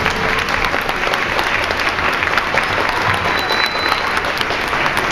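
An audience applauding with steady, dense clapping.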